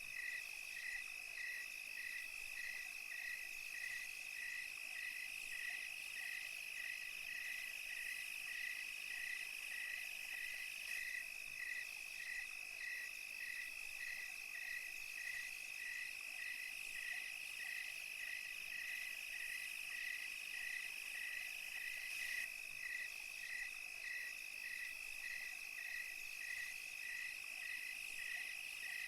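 Night chorus of crickets and other insects: a steady high trill that does not let up, with a regular chirp just below it repeating about twice a second over a higher hiss of insect calls.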